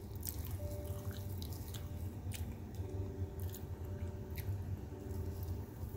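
Fingers mixing biryani rice and pulling apart soft goat meat on a steel plate: small wet squishes and scattered light clicks, over a steady low hum.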